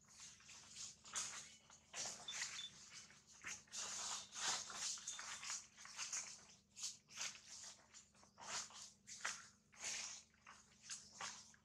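Dry fallen leaves rustling and crackling irregularly under macaques walking and shuffling about on the leaf litter.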